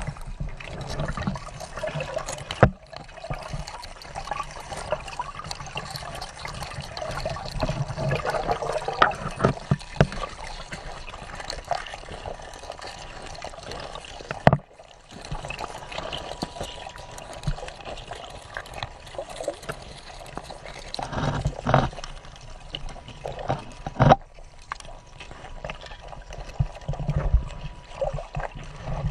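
Water running and trickling with splashing, broken by scattered knocks and a few abrupt cuts.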